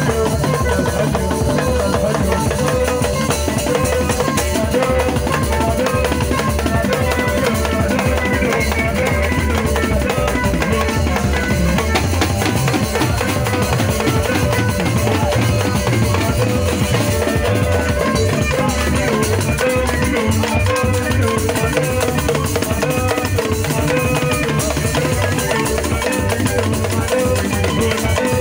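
Band music with drum kit and percussion keeping a steady beat, playing without a break.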